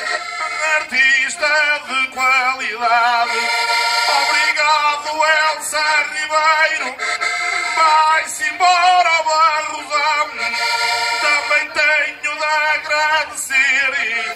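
A man sings a Portuguese cantar ao desafio verse through a PA system, his voice wavering with vibrato, over steady accordion accompaniment.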